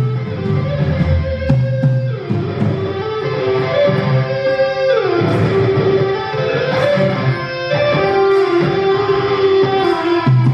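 Guitar-led music, mostly electric guitar, playing sustained notes over a steady bass line, with one note sliding down in pitch about five seconds in.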